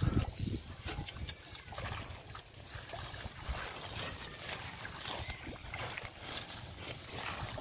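Bare feet and hands sloshing and squelching through shallow muddy water, in irregular splashes, with low wind rumble on the microphone, strongest at the start.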